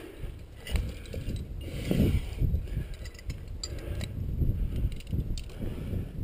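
Climbing hardware clinking and rattling, with carabiners and quickdraws knocking together in irregular clicks and a few bright metallic ticks, mixed with the rustle and scrape of a climber's movement on rock. Heard close through a helmet camera, with heavy low handling rumble.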